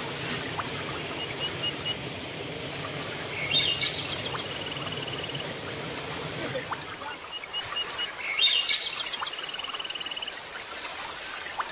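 Forest birds calling and chirping, loudest in two bursts of quick chirps about four and eight and a half seconds in, over a steady high-pitched drone that stops about seven seconds in.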